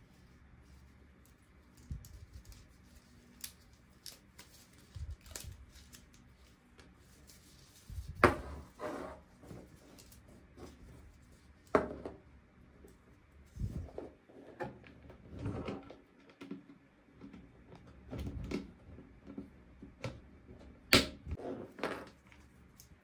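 Toy pieces and packaging being handled: irregular clicks, taps and knocks as small items are picked up and set down, with the loudest knocks about 8, 12 and 21 seconds in.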